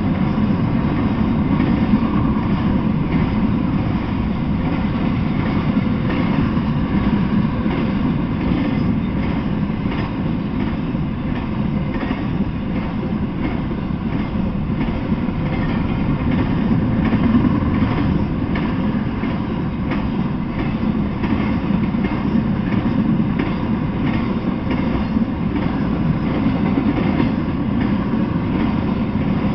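Intermodal freight train rolling past steadily: a continuous rumble of steel wheels on rail, with faint scattered clicks from the wheels and couplings.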